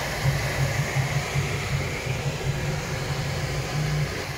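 Qidi X-Plus 3 3D printer running while printing in vase mode: a steady fan whir with the motors humming low in short, uneven on-off pulses as the print head moves.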